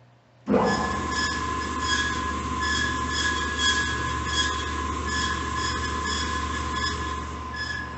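Hyd-Mech S-20 Series II horizontal bandsaw switched on about half a second in and running steadily: a motor hum under a steady high whine from the running blade and drive, with a flickering squeal above it.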